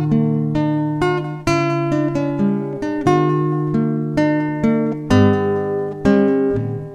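Acoustic guitar music: plucked chords in a steady pulse, each note ringing and fading.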